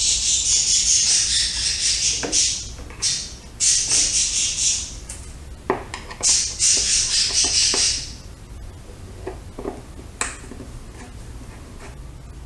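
Phillips screwdriver backing the screws out of a motorcycle's plastic air cleaner housing, with high-pitched squeaky scraping in several bursts of a second or so each. A few light clicks follow.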